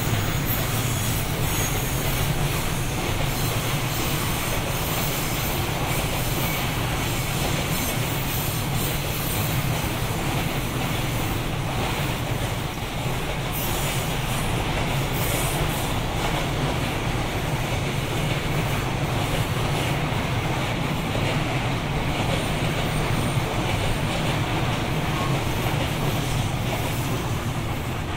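Freight train rolling past, its wagons' wheels running steadily on the rails with a deep rumble.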